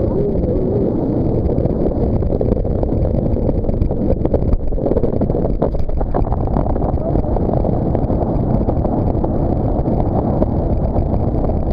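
Steady rumble of wind buffeting the microphone while riding a banana boat towed at speed, with the rush of water and the tow boat's motor mixed underneath.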